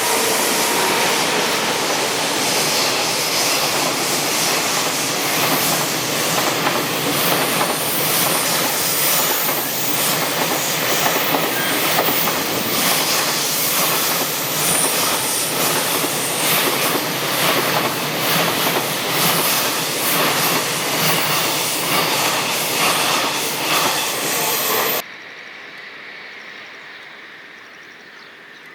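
Freight train passing at speed close by, its wagons' wheels clattering rapidly over the rail joints amid a loud rolling rush. The sound cuts off suddenly near the end, leaving a much quieter background.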